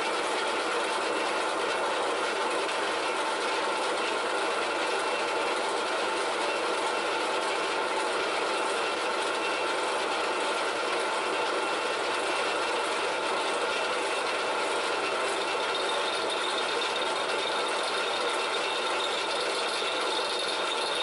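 Pillar drill running steadily while drilling holes through a metal bar held in a machine vise. A faint high whine joins near the end.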